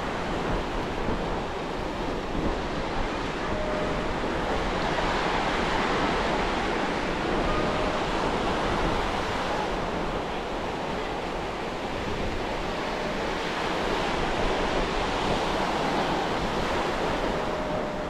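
Ocean surf breaking and washing up the beach, a continuous rush that swells and eases as the waves come in. Wind buffets the microphone underneath.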